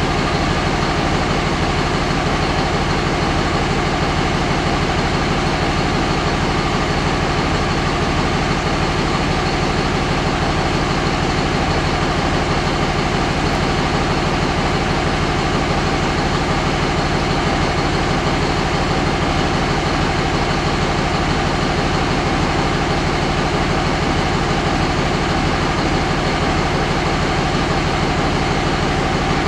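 2005 Dodge 5.9 Cummins common-rail diesel idling steadily, warmed up to about 181 °F, while its injector return fuel flow is being measured.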